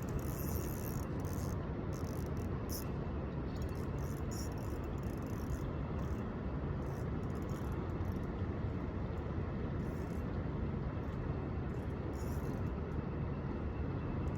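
Steady outdoor background rumble, even and unbroken, with faint high hiss flickering over it.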